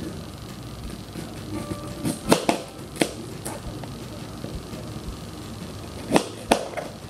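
Kitchen knife slicing a raw peeled beet into rounds, knocking sharply on a plastic cutting board: a run of knocks about two to three and a half seconds in and two more near the end. Faint background music runs underneath.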